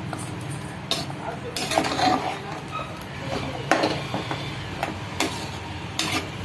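Steel ladle stirring thick curry in an aluminium pressure cooker, with several sharp knocks of the ladle against the pot, over a steady low hum.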